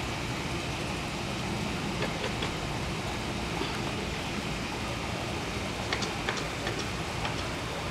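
Steady outdoor background noise, an even hiss with a low rumble under it, and a few faint clicks.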